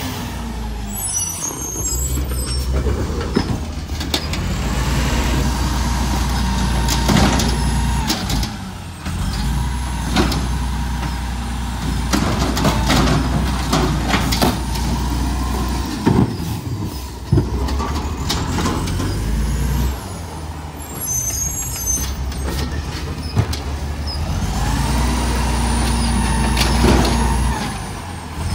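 Diesel garbage truck revving its engine to drive the hydraulic packer as it compacts a load of yard waste. The engine rises and drops back several times, with a faint whine and scattered sharp clanks.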